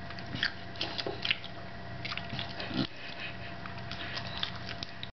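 A dog eating chunks of steak from a bowl: irregular wet chewing and smacking with sharper crunches, the strongest about half a second, a second and a quarter, and nearly three seconds in.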